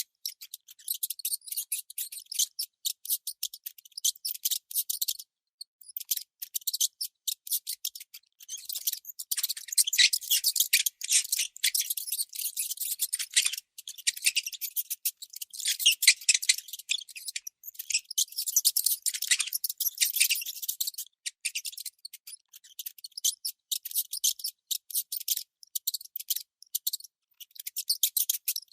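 Mouse squeaking: rapid runs of high, thin squeaks, in clusters broken now and then by short pauses.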